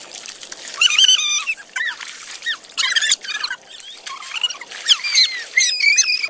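Comic squeaking sound effect: many short, high-pitched squeaks rising and falling in quick runs, with none of the pool's splashing under it.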